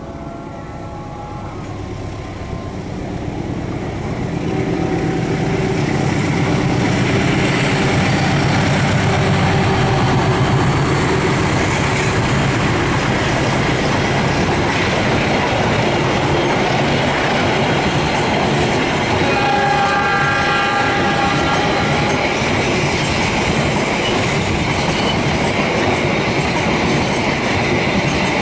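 Passenger train passing close by: the rumble and clatter of its wheels on the rails builds over the first few seconds and then holds steady and loud. Around twenty seconds in, the train's horn sounds for about two seconds.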